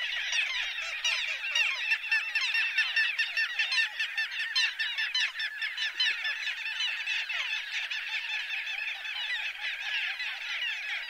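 A flock of little gulls calling together: a dense chorus of many short, overlapping calls that goes on without a break.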